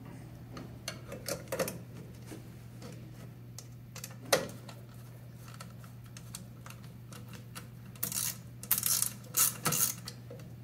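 Small metal clicks and taps as a sealed-beam headlight unit is seated in its chrome mounting ring and the ring's screws are turned with a screwdriver. One sharper knock about four seconds in, and a quick run of scraping clicks near the end.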